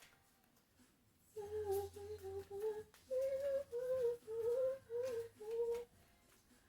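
A woman humming a short tune, a string of about ten notes lasting roughly four and a half seconds.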